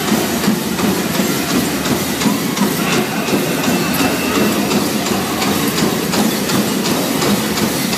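Dense, loud din of a hall full of pow wow dancers in the grand entry: bells and jingles on their regalia jangle along with feet and voices, with a faint regular beat under it.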